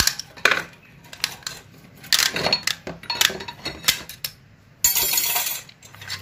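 Steel and friction clutch plates clinking and rattling as they are pried at and lifted out of an automatic transmission's forward clutch drum. About five seconds in there is a short hiss.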